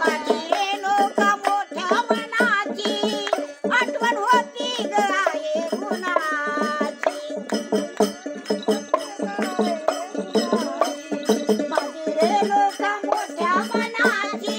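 Women singing a Marathi devotional folk song to the goddess Yellamma, led by an elderly woman's voice with wavering, ornamented pitch, over a steady, quick rhythmic percussive accompaniment.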